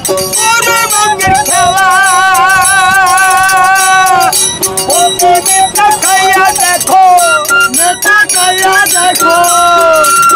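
Baul folk music: a bamboo flute plays a melody with long, wavering held notes, over a steady beat of short metallic strikes from small hand cymbals.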